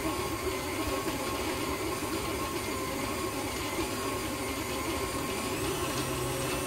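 Electric stand mixer running steadily, its beater creaming soft butter and sugar in a metal bowl. The motor's whine steps up slightly in pitch near the end.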